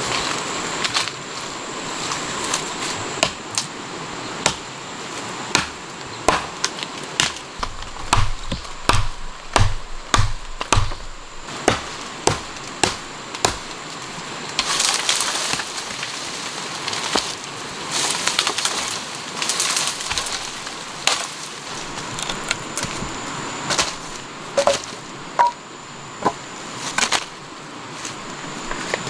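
Wooden sticks and branches being chopped and snapped: a long irregular series of sharp woody cracks and knocks, coming thick and fast with heavier thuds about a third of the way in, with rustling of brush and leaves.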